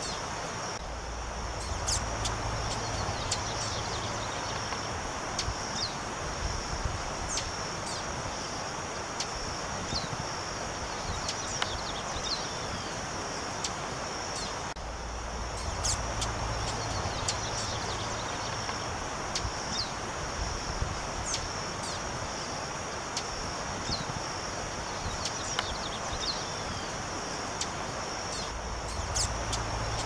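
Female lined seedeater (bigodinho) giving short, high call notes that slur downward, at irregular intervals, over a steady high insect drone. A low rumble comes and goes.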